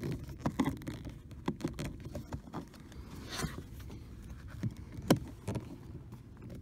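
Scattered small clicks, knocks and scrapes of a flathead screwdriver working a quarter-turn screw in a car's rear door pocket, with a louder click about five seconds in.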